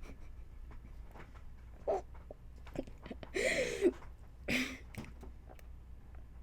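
A person hiccuping: several short, sudden catches in the throat about two, three and four and a half seconds in, with a longer voiced one in between that rises and falls in pitch.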